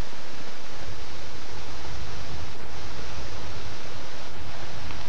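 Wind buffeting a camcorder microphone: a steady hiss with a low rumble that comes up about a second in.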